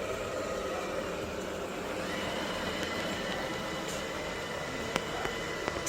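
Robot vacuum cleaner running: a steady motor whir with a faint high whine that sets in about two seconds in, and a few sharp clicks near the end.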